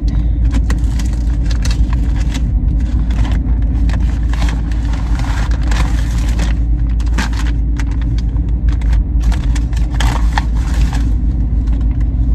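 Plastic courier packaging being torn and crinkled open by hand, in irregular crackling rustles, over a steady low rumble.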